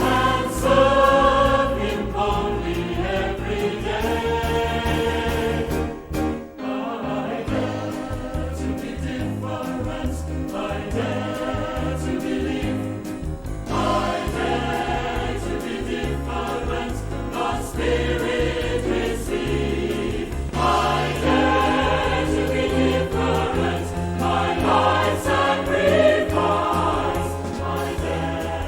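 Choir singing a Christian worship song with instrumental accompaniment, with a brief dip about six seconds in.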